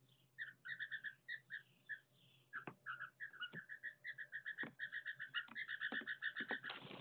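Blue jays calling: short, clear notes, scattered at first, then quickening into a fast run of about five or six a second through the second half. A few sharp knocks fall among the calls.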